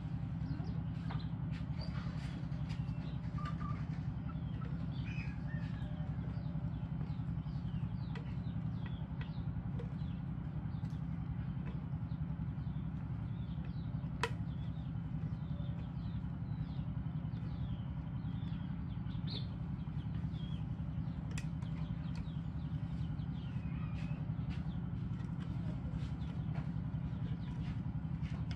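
Small birds chirping throughout over a steady low rumble, with a single sharp click about fourteen seconds in.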